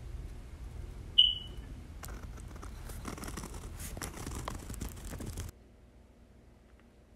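A short high ping about a second in, then a pen scratching on lined notebook paper for a few seconds, cutting off suddenly and leaving faint room tone.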